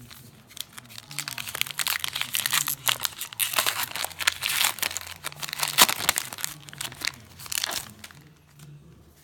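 A 2018 Topps Allen & Ginter baseball card pack's wrapper being torn open and crinkled in the hands. The dense crackling crinkles start about half a second in and die away about a second before the end.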